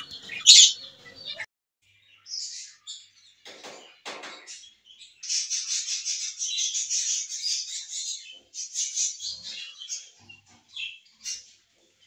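Small pet cage birds, lovebirds and budgerigars, chirping and chattering in high, rapid calls. The chatter grows dense from about five to eight seconds in, with scattered single chirps around it.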